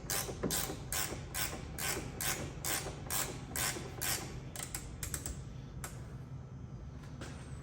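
Hand ratchet wrench turning a suspension bolt on a Honda Civic rear control arm, in steady back-and-forth strokes about two to three a second. It breaks into a quicker run of clicks about five seconds in, then slows to a few fainter strokes.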